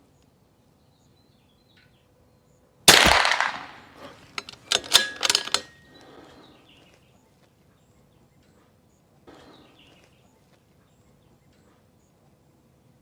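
A Desert Precision Gunworks .22 LR rifle fires a single shot about three seconds in. About a second later comes a quick run of metallic clicks as the bolt is worked to eject the case and chamber the next round.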